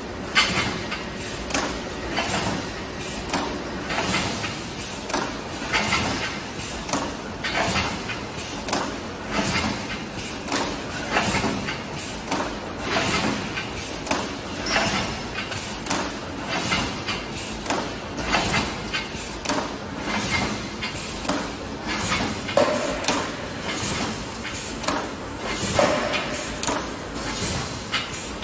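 Automatic edge-trimming wire mesh welding machine running through its cycle, with a short clattering stroke about once a second over a steady mechanical noise.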